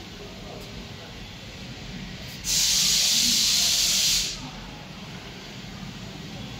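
A loud burst of hissing, about a second and a half long, that starts and stops abruptly over a steady low background hum.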